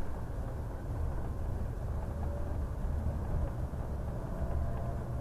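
Steady low rumble of a bus's engine and road noise heard from inside the driver's cab while driving.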